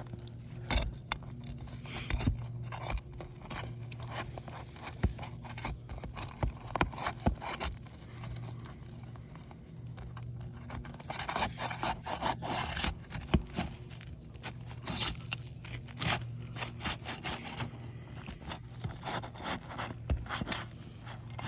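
Asphalt roof shingle being pried up from its sealant strip, with irregular scraping and many sharp clicks as the seal tears. The bond is pulling the mat away from the shingle as it lifts (mat transfer), a sign the shingles cannot be lifted and resealed cleanly.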